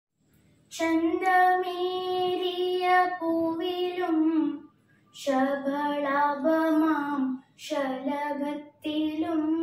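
A young girl singing a Malayalam prayer song solo and unaccompanied, in held notes and phrases a few seconds long with short breaks for breath between them.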